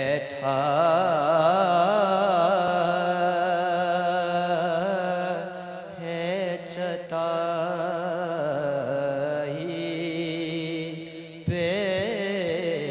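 A young man's solo voice reciting a naat in a melismatic chant, with long, wavering held notes. There are two short breaks, about halfway and near the end.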